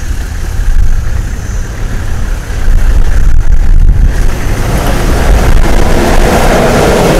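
Toyota Land Cruiser troop carrier's engine running and its tyres rolling over gravel as it drives toward the listener. It gets louder about two and a half seconds in and builds further near the end.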